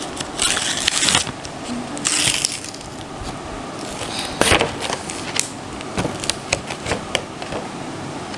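Paper and card packaging rustling and crinkling as it is pulled open and handled, in two bursts in the first few seconds. Then scattered sharp clicks and taps, the loudest about four and a half seconds in.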